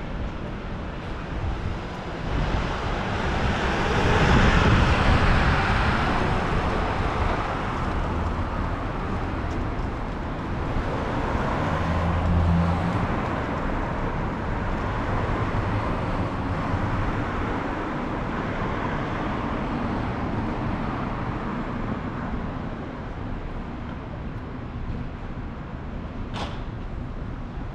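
City street traffic: cars pass on the road, one swelling past about four seconds in and another vehicle's engine hum rising around twelve seconds in, with a brief high chirp near the end.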